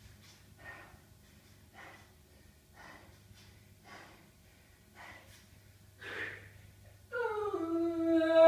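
A person breathing hard, in regular heavy breaths about once a second. Near the end, a long drawn-out vocal sound slides downward in pitch.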